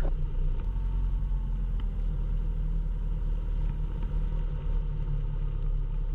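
Cessna 172 Skyhawk's piston engine and propeller running steadily at low taxi power, a constant low drone.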